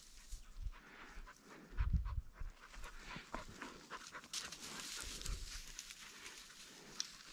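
Pointing dog panting, with scattered crackling and rustling of brush.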